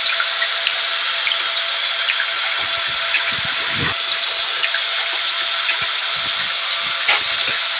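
Rain mixed with a running vacuum cleaner: a steady hiss with the motor's thin, constant whine tones running through it, and scattered patter of drops.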